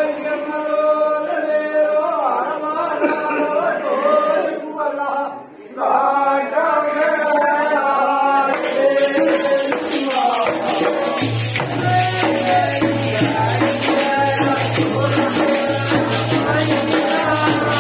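Men singing a rustic Hindi devotional folk song (langurìya) together, their voices breaking off briefly about five seconds in and then resuming. Fast rhythmic percussion joins about nine seconds in, with a low pulsing beat under it a couple of seconds later.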